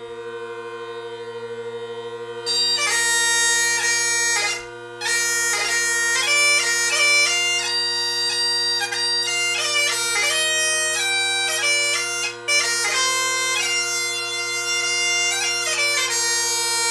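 Bagpipes: the drones sound alone, then the chanter comes in about two and a half seconds in and plays a tune over them. The drones are out of tune, and the older chanter does not project the pitch typically expected today.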